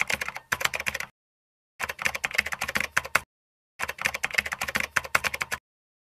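Typing sound effect: rapid key clicks in three bursts of about one to two seconds each, with dead silence between them.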